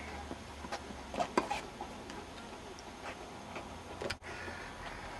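Tennis ball being struck by rackets and bouncing on the court: sharp knocks at irregular spacing, a quick cluster of them about a second in and a few sparser ones later.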